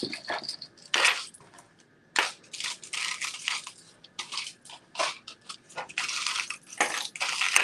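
Costume jewelry being handled: irregular light clicks and metallic clinking mixed with crinkly rustling, in short bursts.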